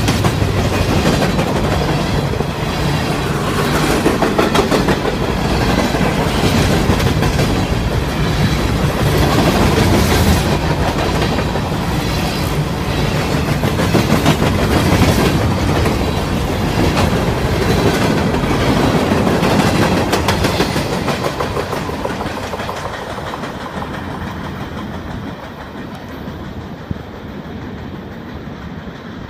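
Union Pacific freight train of open-top hopper cars rolling past, its wheels clattering over the rail joints. The sound fades over the last several seconds as the end of the train moves away.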